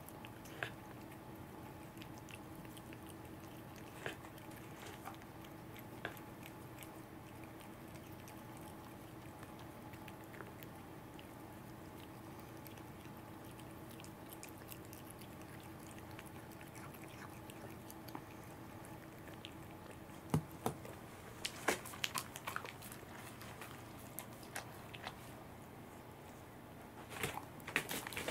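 A cat chewing and licking a small piece of fish held in the fingers: faint wet smacks and small clicks, scattered at first and bunched together later, over a faint steady hum. Near the end a dog licking at the fingers adds a quick run of smacking clicks.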